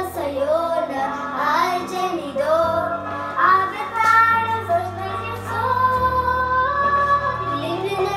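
A child singing a melody over a recorded musical accompaniment with steady bass notes.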